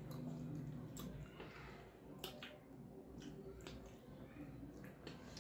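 Eating by hand: fingers mixing rice and curry on a metal plate, then a mouthful being chewed, heard as faint, scattered short clicks.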